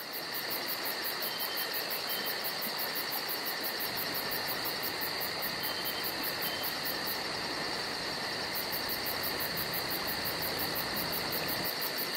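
Steady insect chorus: a shrill, continuous drone with a very high, fast pulsing buzz on top that drops out briefly about seven seconds in.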